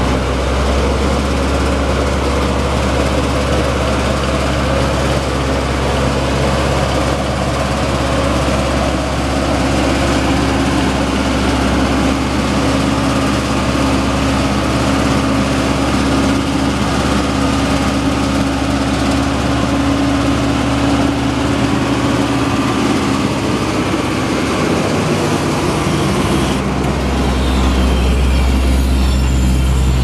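The asphalt paver's Cummins four-cylinder turbo diesel runs steadily. Its note dips and wavers about three-quarters of the way through, then settles back, louder, near the end.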